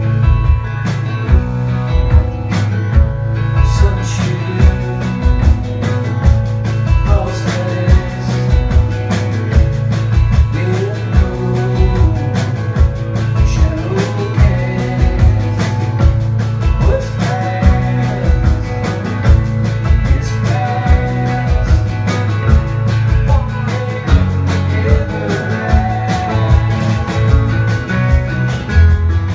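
Live folk-rock band playing a song: acoustic guitar, electric guitar, bass guitar and drum kit, with a steady drum beat under the guitar lines.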